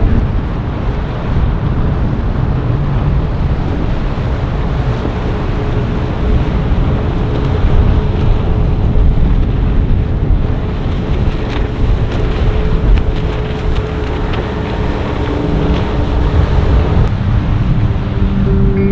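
Motorboat engines running in rough inlet water, with waves and wind buffeting the microphone. A steady engine hum comes in about six seconds in and fades out shortly before the end.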